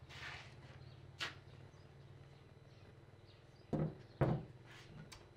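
A sharp click, then two louder knocks in quick succession, the second the loudest, over a low steady hum.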